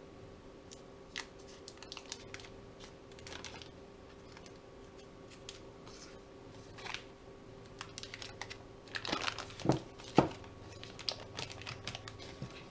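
Paper butter wrapper crinkling and rustling as a stick of butter is unwrapped by hand, in scattered small crackles and clicks. The sound grows busier about three-quarters of the way through, with two louder knocks about half a second apart.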